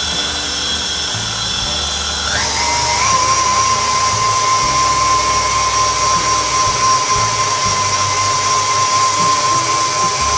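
KitchenAid stand mixer's motor running while it mixes dry ingredients in its steel bowl: a steady whine that steps up in pitch about two seconds in as the speed is turned up, then holds steady.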